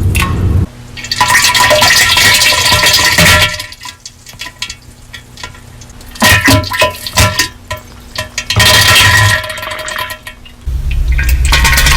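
A heavily distorted, overdriven diarrhea sound effect: loud wet sputtering bursts, about five of them, with short quieter gaps between.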